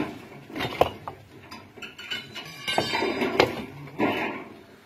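Irregular knocks of hand tools striking a brick wall as bricks are broken out by hand, about half a dozen blows, with scraping and clatter of loosened bricks and mortar.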